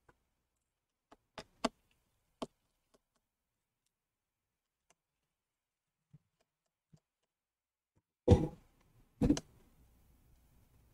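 Hands and a tool handling an opened laptop: a few light clicks and taps, then two louder knocks about a second apart near the end.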